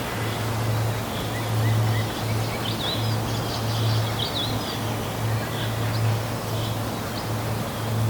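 Waterfall rushing steadily, with birds chirping a few times about three seconds in. Under the water runs a low steady hum that breaks off briefly every second or so.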